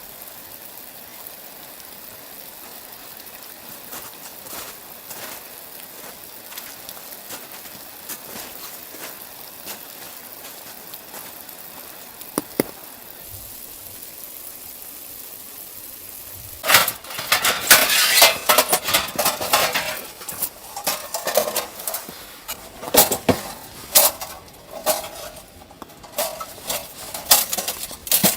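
A steady hiss, then, about two-thirds of the way in, a run of loud, irregular knocks and clinks with a metallic ring, like metal cookware being handled.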